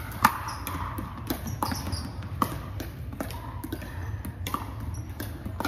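Pickleball paddles striking a plastic ball during a rally, with the ball bouncing on the hardwood court: sharp pops roughly every half second to second in a large hall. The loudest hit comes just after the start.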